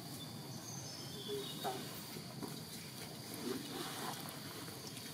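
Outdoor ambience with a thin, steady high drone of insects, and a few faint, short indistinct sounds about one and a half and three and a half seconds in.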